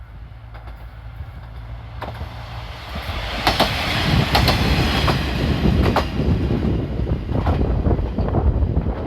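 Diesel train passing close by over a level crossing: a low hum, then a rising rush of wheel and rail noise, with the wheels clacking sharply over rail joints several times.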